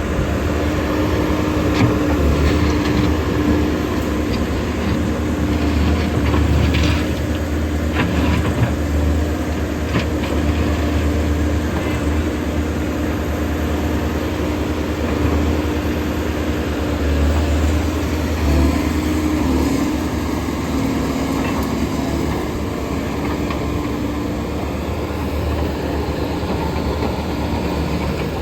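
Komatsu PC130 excavator's diesel engine running steadily with a low rumble, a few sharp knocks sounding over it in the first half.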